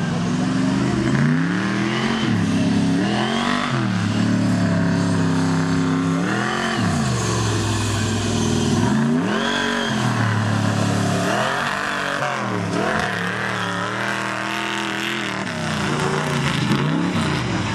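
Mega mud truck's engine being revved hard and let off again and again, its pitch climbing and dropping back about six or seven times as the truck runs over the dirt mounds.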